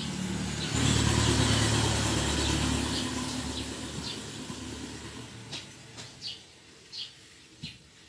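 A motor vehicle's engine passing close by: it comes in suddenly about a second in, is loudest then, and fades away over several seconds. A bird chirps repeatedly, most clearly in the second half.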